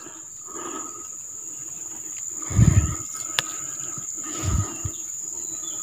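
A steady high insect drone runs throughout. Over it come a few dull low thumps, the loudest about halfway in, as a freshly caught river fish and the hook-removal tool are handled on the dirt bank.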